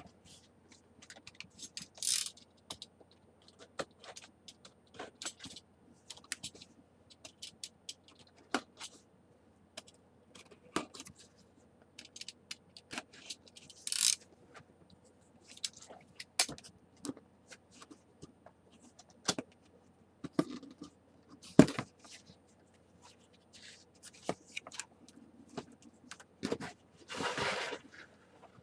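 Cardboard box and plastic toy packaging being handled and opened: scattered clicks, taps and knocks with a few short scraping rustles, a longer scrape near the end, and one sharp knock a little past the middle, the loudest sound.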